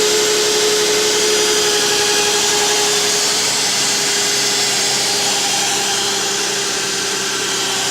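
A 2007 Nissan Quest's 3.5-litre V6 idles steadily under a constant whine. It runs smoothly with no misfire or shaking now that the failing number 2 ignition coil has been dealt with.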